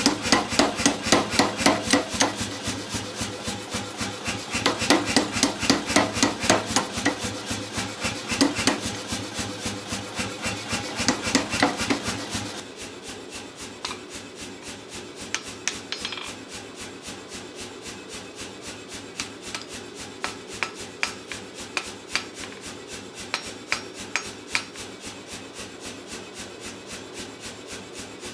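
A power hammer pounding a red-hot steel bar in rapid, steady blows. About twelve seconds in it gives way to lighter, sparser hand-hammer blows on hot steel against the anvil.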